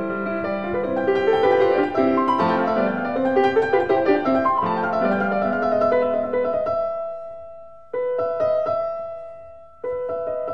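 Background piano music, a melody over chords. The notes die away about two-thirds through, then the music cuts back in abruptly twice, near 8 and 10 seconds.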